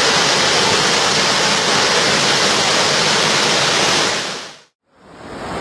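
Loud, steady rush of floodwater, cutting off abruptly about four and a half seconds in, followed after a brief gap by another rushing-water sound.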